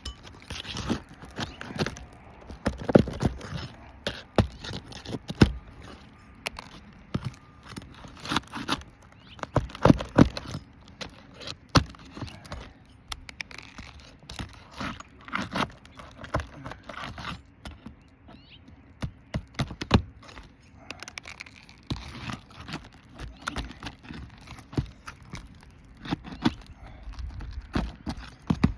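Irregular scraping, clicks and knocks of a pry tool working under brittle asphalt roof shingles to loosen a damaged shingle for removal.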